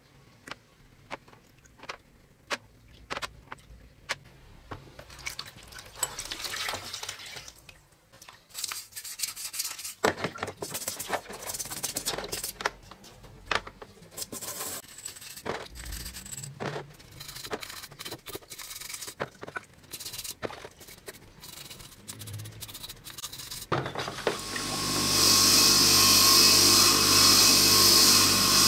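Small metal bicycle-bell parts clicking and clattering in a plastic tray as they are set down and scrubbed with a brush, with scraping and rubbing. In the last few seconds a bench grinder runs with a steady whine, much louder than the rest, as a small part is held to its wheel.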